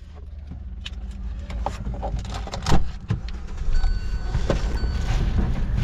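Swaraj 733 FE tractor's three-cylinder diesel engine running with a steady low throb, growing louder over the few seconds, with a few light clicks and knocks.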